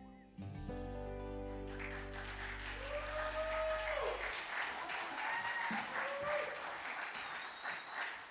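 A song ends on a held final chord whose low note stops about four seconds in, while audience applause builds from about two seconds in, with a few voices calling out over the clapping.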